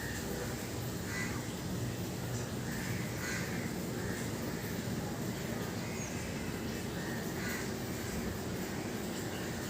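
Bird giving several short, harsh, caw-like calls over a steady background hiss.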